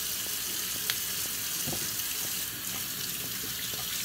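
Kitchen tap running steadily into a stainless-steel sink as asparagus spears are rinsed, with one sharp snap about a second in as a spear is broken.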